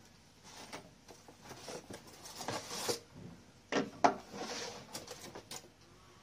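Plastic wrapping and a paper instruction booklet rustling as a roof rack kit is unpacked on a wooden deck, with two sharp knocks about four seconds in, the second the loudest.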